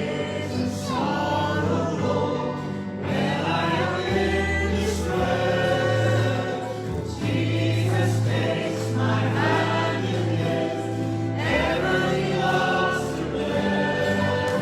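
Congregation singing a worship song together over a band with a steady bass line, phrases breaking off about every couple of seconds.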